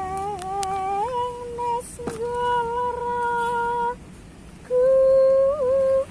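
A woman's voice humming a slow melody in long held notes, with small bends of pitch between them and a short pause about four seconds in. A few faint clicks sound in the first two seconds.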